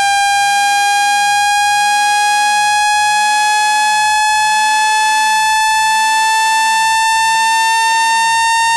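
Synthetic speaker-cleaning tone: a single buzzy electronic tone, rich in overtones, gliding slowly upward in pitch. It is the kind of frequency sweep played at full volume to shake dust out of a phone speaker grille.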